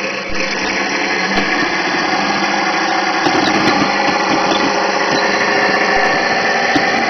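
1/6-scale radio-controlled M4 Sherman tank driving on asphalt: a steady mechanical whir of its drive running, with the small clicks of its track links over it.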